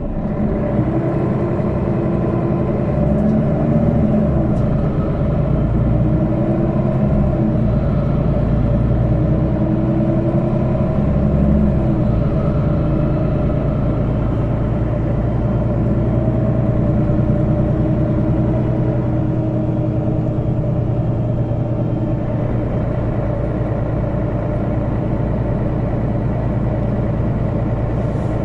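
Mercedes-Benz Citaro O530 city bus's diesel engine and drivetrain heard from inside the bus as it pulls away and accelerates: the engine note rises and drops back several times in the first twelve seconds, then settles into steady running.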